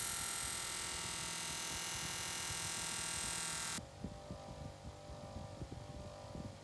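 Bench grinder turning a polishing wheel with a steel cleaver blade pressed against it: a loud, steady hissing whir. Just under four seconds in it drops suddenly to the quieter hum of the running grinder, with irregular low bumps.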